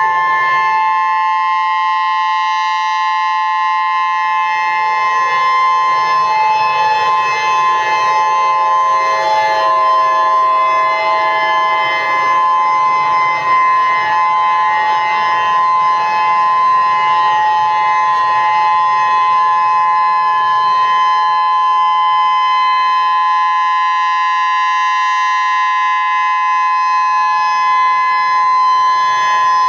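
Chilean emergency alert alarm sounding without a break: two steady, piercing tones close together in pitch, with fainter lower tones sliding in pitch during the first half.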